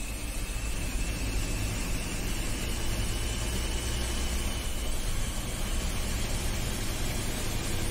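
Steady engine drone and road noise heard from inside a moving vehicle's cabin, deep and continuous, with a faint high whine over it that drifts slightly in pitch.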